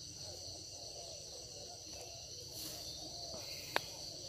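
Steady high-pitched chorus of field insects, typical of crickets, with a single sharp click near the end.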